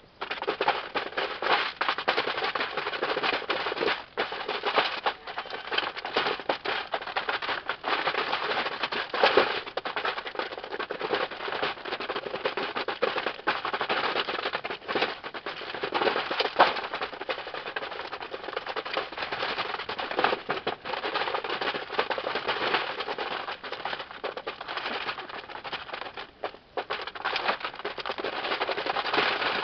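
Domestic ducks feeding from a trough of dry pellets, their bills scooping and dabbling through the feed in a dense, continuous rapid clicking and rattling.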